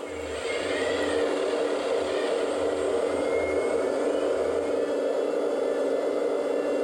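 Electric hydraulic pump of a 1/14 Kabolite 970 RC hydraulic excavator running with a steady whine. A deeper hum and a few faint rising and falling whistles come in for the first few seconds while the upper body swings round with the empty bucket raised.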